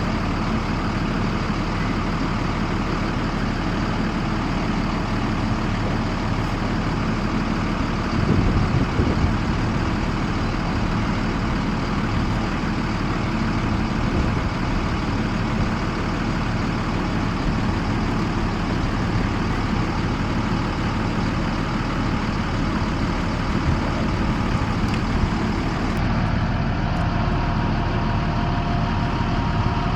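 School bus engine idling steadily, with a brief louder patch about eight seconds in.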